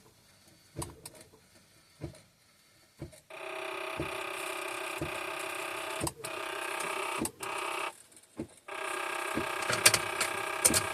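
The 2009 Buick Enclave's 3.6 V6 being cranked by its starter without firing, a steady whine that starts about three seconds in and breaks off briefly twice, with clicks along the way. The car has a no-start with a P0335 crankshaft position sensor code.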